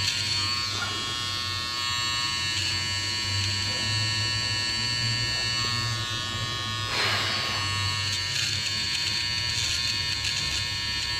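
Sonar HP-300 rechargeable electric nose hair trimmer running with a steady buzz while trimming nose hair.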